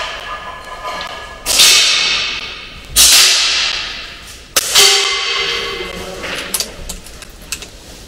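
Three shots from a .22 Daystate Wolverine R pre-charged pneumatic air rifle, about a second and a half apart, each a sharp crack with a long echo in a large hall. A few light clicks follow near the end.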